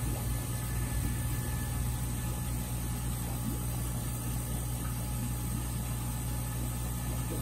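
A steady low machine hum with a faint hiss, unchanging throughout.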